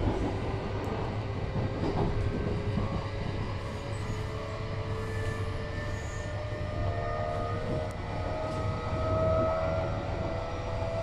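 Interior running sound of a JR East E531 series electric train accelerating: the traction motor whine rises slowly in pitch over a steady low rumble of wheels on rail.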